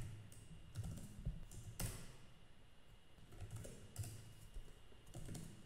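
Computer keyboard typing: faint, irregularly spaced keystrokes.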